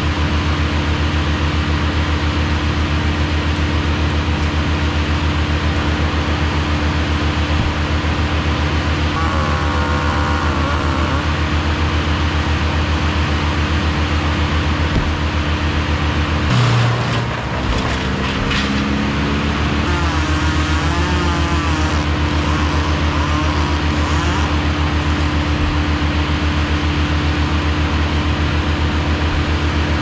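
An engine idling steadily with a low, even hum. Just past halfway it dips briefly under a few sharp knocks, and a higher engine note rises for a moment before the steady idle returns.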